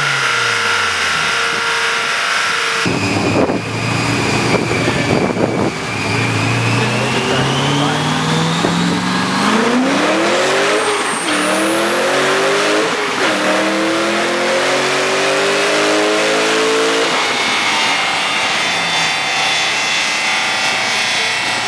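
A Honda S2000 engine winds down on a chassis dyno for the first few seconds. Then a C5 Corvette V8 on the dyno rumbles roughly and makes a full-throttle pull, its revs climbing with two brief dips. The throttle cuts off about three-quarters of the way through and the revs wind down.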